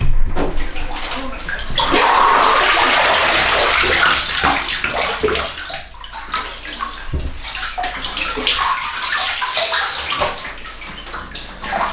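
Water and ice cubes sloshing and splashing in a bathtub as a person stands up out of an ice bath and shifts his feet in the icy water. The loudest, most continuous splashing comes in the first half, then it breaks into uneven splashes and light clicks.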